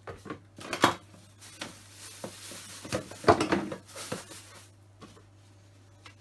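Kitchen things being handled and set down off to the side: a string of knocks and clatters, loudest about a second in and again past the middle, over a faint steady low hum.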